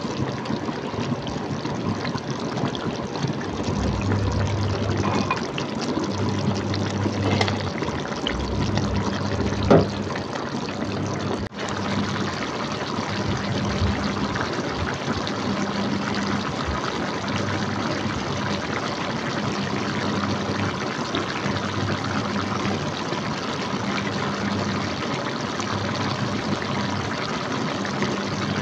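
Duck pieces in thick soy-sauce gravy boiling in an open pot, the sauce bubbling steadily.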